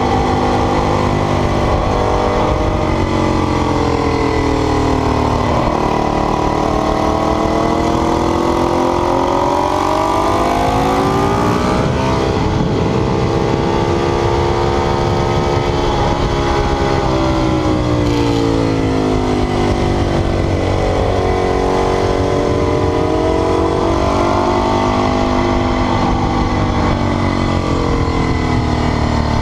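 Ducati 848's V-twin engine being ridden hard, its revs climbing and falling again and again as the bike accelerates and slows, with a sudden drop in revs about twelve seconds in.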